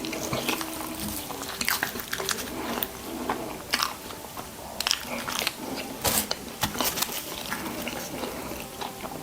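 Close-miked eating of burgers and fries: biting and chewing, with irregular crisp crunches.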